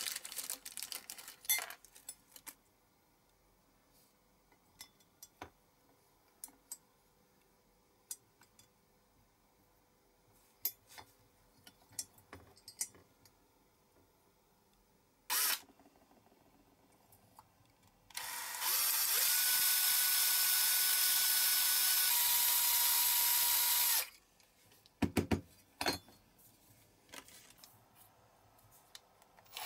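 Cordless drill running for about six seconds, its whine dropping in pitch partway through. Before it come light clicks and taps of small parts being handled and a brief burst of noise; a few sharp knocks follow.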